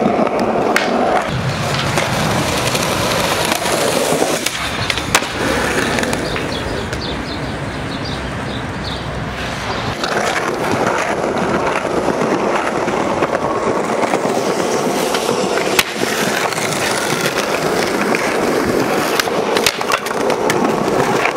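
Skateboard wheels rolling over pavement, a steady gritty rolling noise, broken by a few sharp clacks of a board, the clearest about five seconds in and another around sixteen seconds in.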